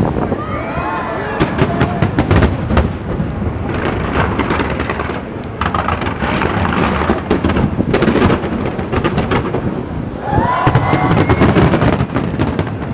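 Aerial fireworks display: a dense run of bangs and crackling over a continuous rumble.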